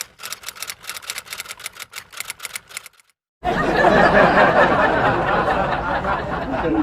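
Rapid clicking, about eight clicks a second, for about three seconds, like typewriter keys. It stops, and after a brief gap a loud burst of group laughter starts.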